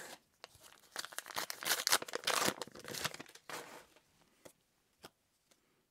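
A booster-pack wrapper being torn open and crinkled, a dense crackle lasting about three seconds, then a few scattered light ticks near the end.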